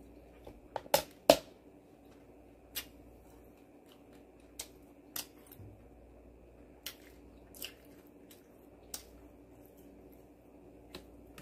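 Chewing crispy battered fried pork (guobaorou) close to the microphone. There are two loud, sharp crunches about a second in, then single crunches scattered every second or two over a low steady room hum.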